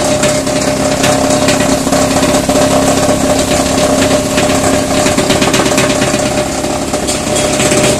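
Plastic crusher (granulator) running at speed, its rotary blades chopping waste plastic: a steady mechanical hum with a dense rattle of clicks from the crushed pieces.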